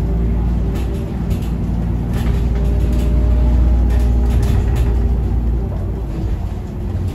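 Iveco Urbanway 18 Mild Hybrid articulated city bus under way, heard from inside the cabin: a steady low drivetrain rumble with a faint whine and light rattles.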